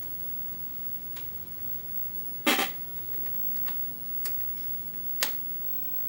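Scattered small clicks and taps of a screwdriver and tiny screws on a laptop's screen mounts, with one louder clattering knock about two and a half seconds in, over a low steady hum.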